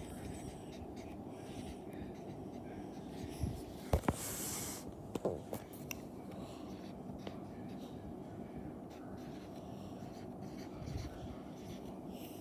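Dry-erase marker on a whiteboard: a few taps and a scratchy stroke lasting about a second, about four seconds in, over a steady low hum.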